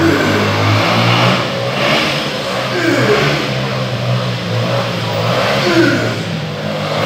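Steady low engine-like mechanical hum, with a short falling sweep in pitch about every three seconds.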